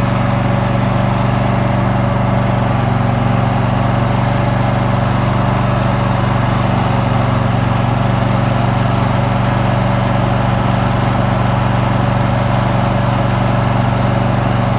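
Riding lawn mower's engine running steadily with an even, unchanging drone as the mower is driven along the road.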